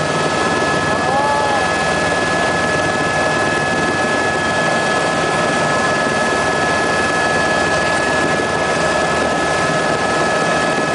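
Helicopter cabin noise: the steady drone of the rotor and turbine engine, with a constant high whine running over it.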